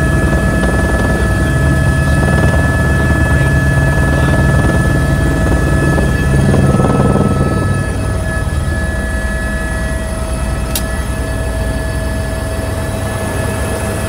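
Airbus H125 helicopter heard from inside the cabin: its single Arriel turboshaft's steady whine, several high fixed tones, over the low beat of the main rotor, easing slightly in loudness about two-thirds of the way through. A single sharp click about eleven seconds in.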